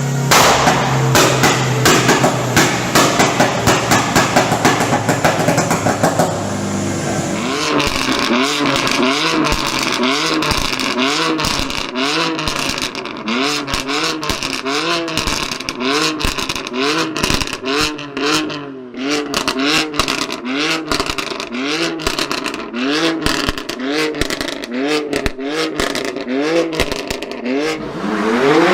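A performance car's engine and exhaust: a fast, dense crackle of exhaust pops for the first several seconds, then the engine is blipped up and down over and over, a bit more than once a second, with pops and cracks from the exhaust between the revs.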